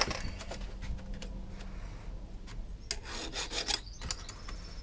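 A flat file rasping in a few short strokes across the depth gauges (rakers) of a Stihl chainsaw chain, starting about three seconds in, after some light clicks of handling.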